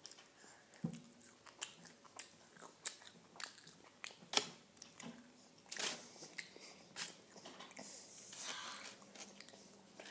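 A child chewing and eating chicken nuggets and fries, with a string of irregular crisp crunches and mouth clicks.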